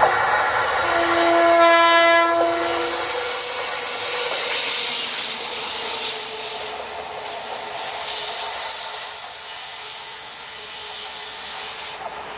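A passing train sounds its horn once, a single steady note held for about two seconds starting about a second in. Rolling noise from the wheels on the rails with a faint high whine carries on, then falls away near the end.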